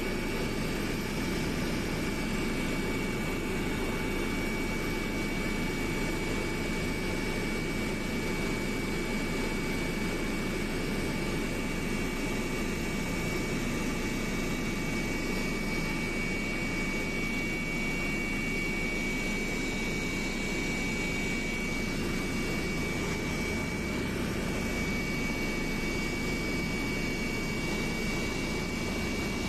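Steady engine and airflow noise heard inside a passenger aircraft's cabin in flight, with a thin, constant high whine over a dense low rumble.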